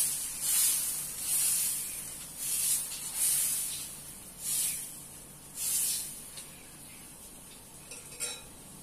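A steel ladle spreading besan (gram flour) batter in circles on a hot tawa: a hissing, scraping swish with each stroke, about seven strokes, over a faint sizzle. The strokes stop about six and a half seconds in, leaving only the soft sizzle of the cheela setting.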